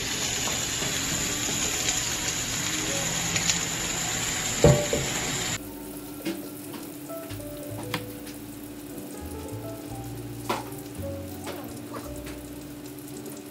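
Chopped onion sizzling in a nonstick frying pan, with one loud metallic clang about four and a half seconds in; the sizzle stops abruptly at a cut, leaving a quieter steady hum with small clicks.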